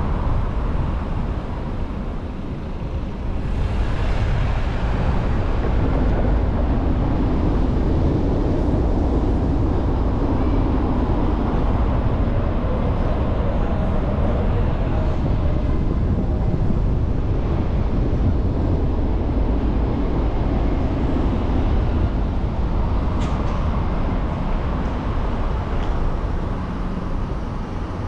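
A car driving through city streets: steady low road and engine rumble with tyre noise.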